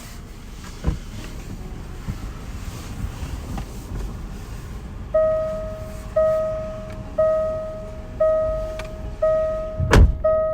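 A car's electronic warning chime dinging about once a second, six times, each ding fading away, with a loud thump near the end. Before the chime come handling knocks and rustling.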